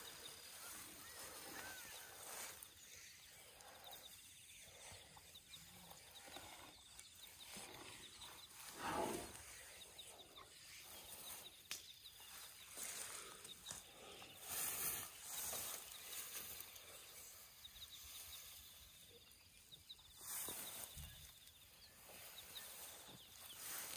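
Quiet, intermittent rustling and tearing of long grass as an elephant calf grazes and moves through it, with a louder rustle about nine seconds in.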